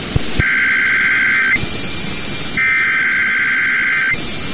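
NOAA Weather Radio SAME data bursts, the buzzing two-tone digital header of an Emergency Alert System message. It is sent twice, each burst a little over a second long with about a second's pause between, over a steady hiss of radio static.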